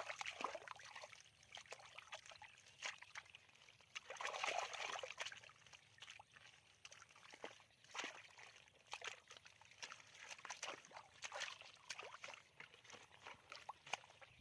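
Shallow muddy water sloshing and splashing, with a string of small wet slaps and clicks. The loudest spell of splashing comes about four to five seconds in.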